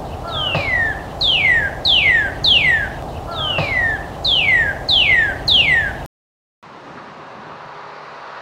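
A bird singing two runs of clear whistled notes, each note falling sharply in pitch, about two a second, over a steady low rumble. It cuts off abruptly about six seconds in, and a fainter steady noise follows.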